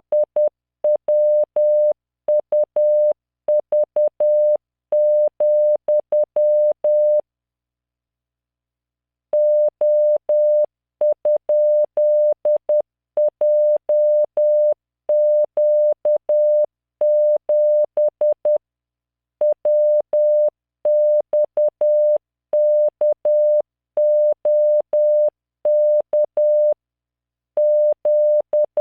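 Morse code practice tone from LearningMorse software: a 600 Hz tone keyed in dots and dashes at 10 words per minute, sending random five-character code groups. The sending pauses for about two seconds a quarter of the way in, then resumes.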